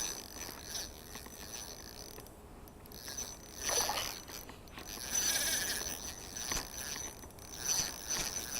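Shimano Sedona 1000S spinning reel being cranked on a slow lure retrieve, its gears whirring and ticking unevenly. It is loudest in spells about 4 s in and from about 5 to 6 s in.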